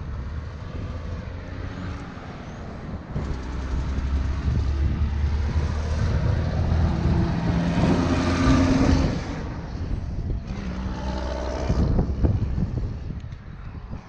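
An engine running, building up about three seconds in and strongest near the middle before easing off.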